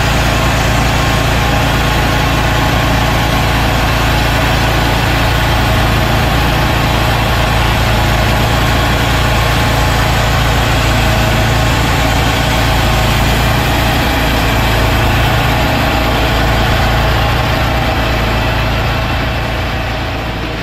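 Portable band sawmill running steadily, its engine under load as the band blade cuts along an oak log. The sound eases off slightly near the end.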